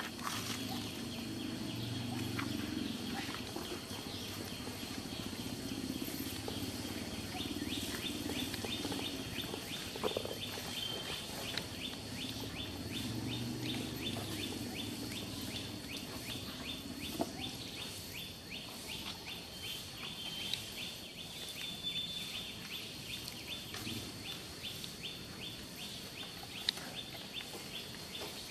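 Outdoor ambience: an even, rapid series of short high chirps, several a second, starts about seven seconds in and keeps on, over a low rumble that swells and fades.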